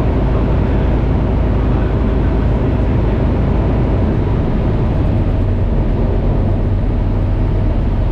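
Single-engine light aircraft's piston engine and propeller running steadily, heard from inside the cockpit as a loud, even drone with rushing air noise over it.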